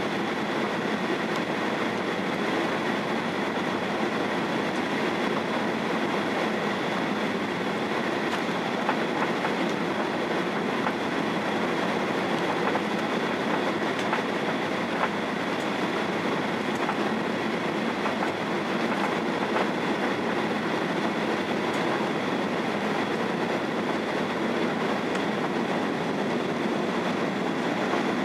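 Cabin noise of a Boeing 737-800 heard from a seat over the wing during the last of final approach and the landing: a steady roar of airflow and its CFM56 engines, with two thin high whine tones over it. It stays even throughout, with no marked change as the aircraft comes down onto the runway.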